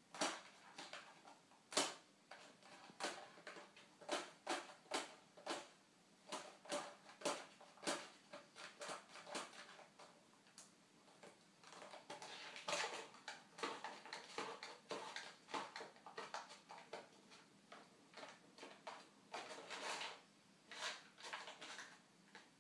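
A cat pawing at and batting a packet of Whiskas cat treats on a kitchen worktop: irregular light taps, clicks and rustling, with longer bouts of rustling about twelve seconds in and again around twenty seconds.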